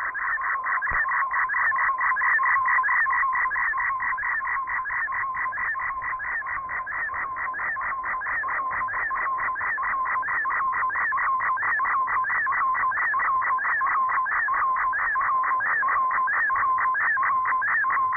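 MFSK digital-mode data tones from a shortwave broadcast heard through a receiver: two data signals sent side by side make a continuous warbling of tones with a steady underlying whistle and a pattern repeating a few times a second.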